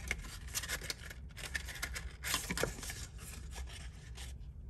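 Textured Bazzill cardstock being folded and creased by hand: a run of short papery scrapes and rustles as fingers pinch and rub along the folds, a little louder just past halfway.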